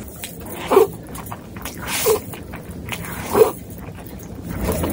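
Close-miked mouth sounds of someone eating instant noodles: wet chewing clicks throughout, with three short, louder slurps about a second and a half apart.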